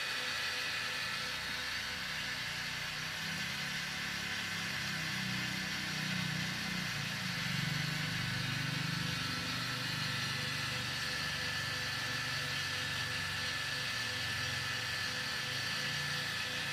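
Cotton candy machine running steadily, its spinning head giving a constant whir and hiss with a low hum underneath.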